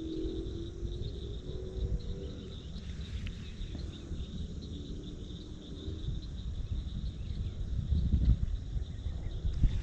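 Steady outdoor chorus of crickets or similar insects, an even high-pitched hum, over a low rumble on the microphone that swells about eight seconds in.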